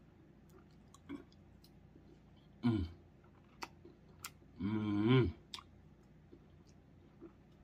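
A man chewing a mouthful of food with scattered wet mouth clicks. There is a brief voiced grunt near three seconds in and a longer closed-mouth hum about five seconds in.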